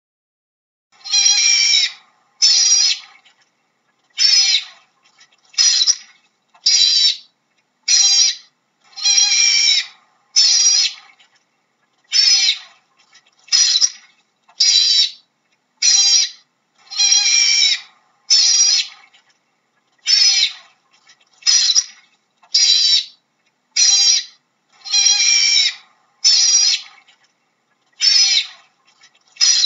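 Otter calling: a long series of short, high-pitched, wavering calls, about twenty of them, each under a second long and spaced roughly a second apart, some coming in quick pairs, with silence between.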